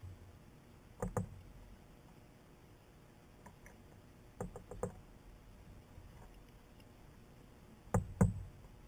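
Sharp knocks or taps in small clusters: two about a second in, three or four in quick succession near the middle, and two loud ones near the end, over a faint steady background.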